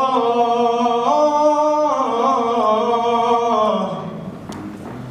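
A man singing an unaccompanied Iraqi mawwal into a microphone, one long held melismatic phrase that steps between pitches and tails off near the end.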